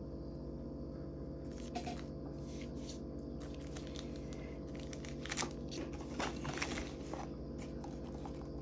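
Pokémon trading cards and their packs being handled: scattered short scraping and rustling noises, busiest from about four to seven seconds in, over a steady low hum.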